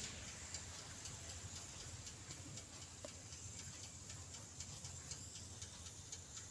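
Toaster oven baking with its heating elements on: faint, quick, irregular ticking over a low steady hum.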